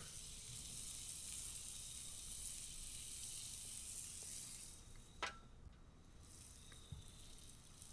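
Beef burger patty sizzling in bacon fat on a Weber Q 2200 griddle plate, a steady hiss. The sizzle drops away about five seconds in, with a single short click just after.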